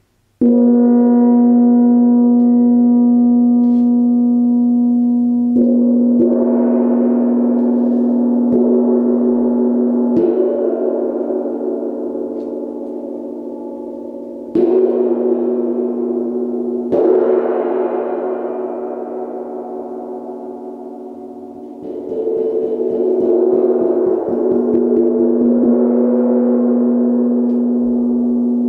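Large hanging metal gong played with a felt-headed mallet: the first stroke sets a deep, steady hum ringing, and several more strokes every few seconds each add a bright, shimmering swell of overtones that slowly fades back. Near the end a quick run of soft taps builds the shimmer up again over the hum.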